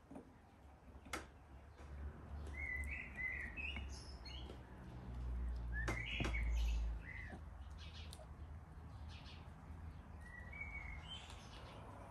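Small birds chirping in short calls, in a few separate bouts. A couple of sharp clicks and a low rumble that swells about five to seven seconds in.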